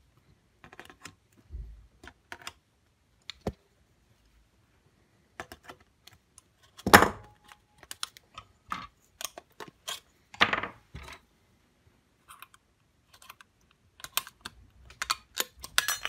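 Pliers twisting the tabs of thin sheet-metal shield cans on a circuit board to free them: scattered sharp clicks and small metallic snaps, the loudest about seven seconds in and another around ten and a half seconds.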